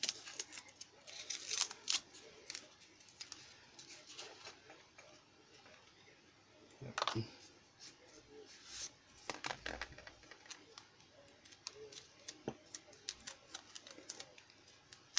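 Black electrical tape being peeled by hand off a wrapped package, making irregular crackles and sticky ripping, with louder tugs about seven and nine seconds in.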